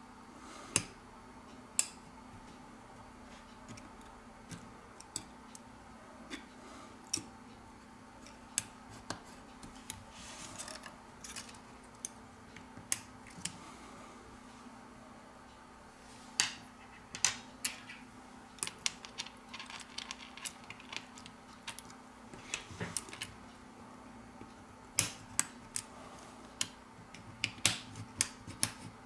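Scattered sharp clicks and light taps of a plastic spudger pressing flex-cable connectors onto a Huawei Mate 20's motherboard and seating its camera modules, coming thicker in the second half. A faint steady hum runs underneath.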